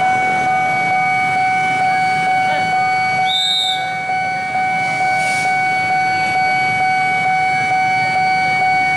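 A steady high-pitched electronic warning tone sounds throughout over the low running of a slowly approaching KAI diesel locomotive. A brief high note cuts in about three and a half seconds in.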